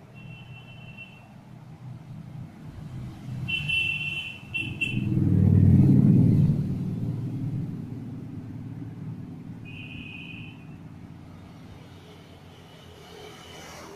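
Low rumble of a passing motor vehicle, swelling to a loud peak about six seconds in and then fading away. Short high two-note tones sound three times: at the start, about four seconds in and about ten seconds in.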